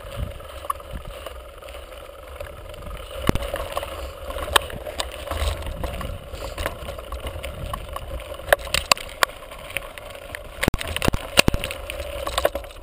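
Mountain bike riding up a rough gravel and rock track, heard from a GoPro on the bike: a steady low rumble of tyres and wind, with sharp clicks and rattles as the bike jolts over stones, bunched together about two-thirds of the way through.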